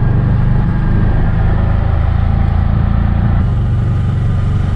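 Auto-rickshaw (tuk-tuk) engine running steadily as it drives along the road, heard from the open passenger cabin, with road noise over the low engine note.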